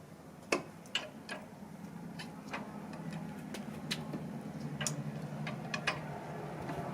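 Scattered light clicks and taps from working the bead breaker of a NoMar manual tire changer on a motorcycle wheel, over a low steady hum that grows slowly louder.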